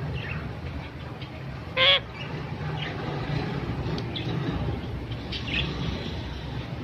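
Pet parrot giving one short, loud squawk about two seconds in, followed by a few faint chirps, over a steady low background rumble.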